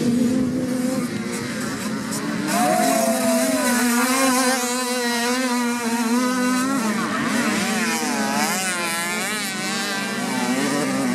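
Several moped motocross bikes' small two-stroke engines revving, the engine notes climbing and dropping in pitch as the riders work the throttle, with the wavering rises and falls strongest in the second half.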